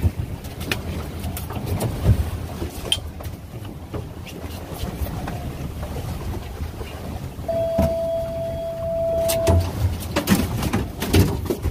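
Fishing boat under way on the open sea: the steady low run of its outboard motors and rushing water, broken by sharp knocks of rods and gear on the deck. A single steady tone sounds for about two seconds past the middle.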